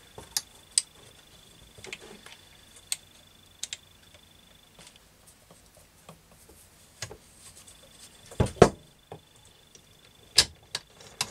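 Scattered clicks and knocks from a Husqvarna TC65 two-stroke gearbox being handled as its gear shafts are turned by hand and the shift drum is stepped to select the next gear. A heavier pair of knocks comes about eight and a half seconds in, and another sharp knock near ten and a half seconds.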